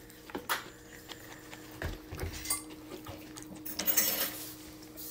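Scattered clinks and knocks of dishes and utensils being handled, with a louder, noisier clatter about four seconds in.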